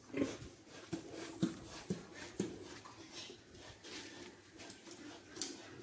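Pigs giving short, soft grunts, several in the first half and another near the end, over a low murmur of animal sound.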